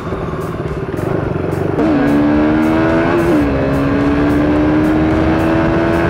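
KTM RC 390's single-cylinder engine under way, mixed with wind and road rush; from about two seconds in its note holds steady and climbs slowly, with a small dip about three seconds in.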